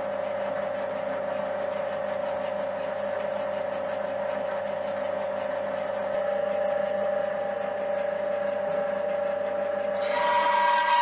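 Bandsaw running with a steady motor hum; about ten seconds in the blade starts cutting into a block of wood and the sound gets louder with a higher whine.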